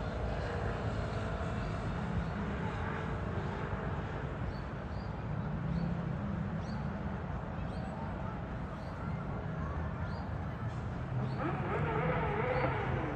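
City ambience: a steady low rumble of distant traffic, with a faint high chirp repeating about once a second. Near the end a distant voice rises briefly over it.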